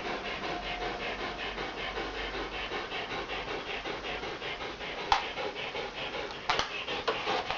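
A dog panting fast and steadily, the laboured breathing of a dog sick from poisoning. A sharp click about five seconds in and a couple of knocks a second later.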